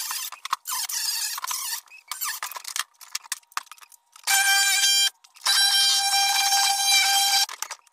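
Cordless reciprocating saw cutting out floor framing: a high, steady motor whine about halfway in, running for under a second, stopping briefly, then running again for about two seconds. Before it, choppy bursts of harsh noise.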